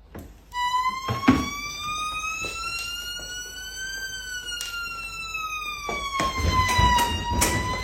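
A single siren-like wail that starts about half a second in, rises slowly in pitch, then slides back down. A few sharp knocks and a low rumble near the end sound alongside it.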